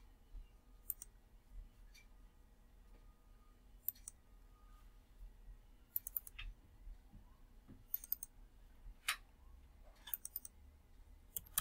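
Faint computer mouse clicks, scattered singles and quick double-clicks every second or two, as dialog items are selected and opened.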